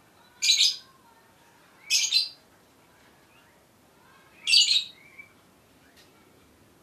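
A bird chirping: three short, high-pitched bursts of chirps spaced a couple of seconds apart.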